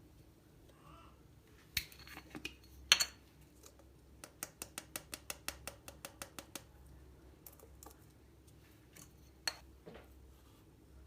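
Sharp clicks and taps of small hard objects. A run of about a dozen evenly spaced clicks, about five a second, comes a little over a third of the way in.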